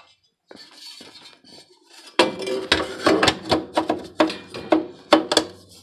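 Sheet-metal furnace inspection cover being fitted back into place: a faint scrape at first, then from about two seconds in a run of loud metallic clanks and rattles.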